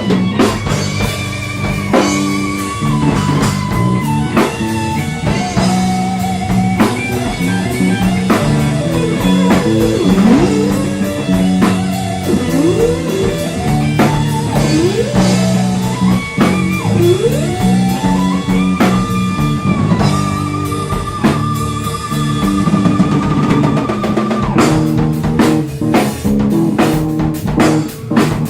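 Live instrumental progressive rock fusion: an electric guitar plays a lead line with rising slides and a long held note with vibrato, over bass and drums. The drums get busier near the end.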